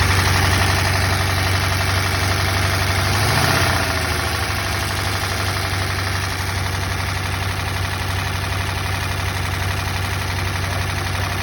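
Buick 425 Nailhead V8 idling with a loud, rapid valvetrain clatter, a tapping that stays even with the hydraulic lifters set to .020 in preload. The engine speed rises briefly and settles about three seconds in.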